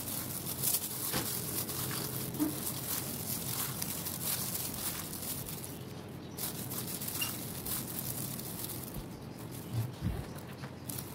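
Boiled flat beans (sim) and green tomatoes being lightly mashed: an irregular run of soft squishing, crackling and clicking noises.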